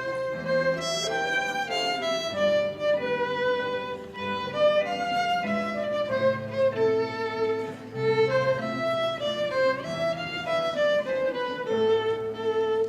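Instrumental music: a violin plays a wavering melody over lower sustained accompanying notes, and it stops at the very end.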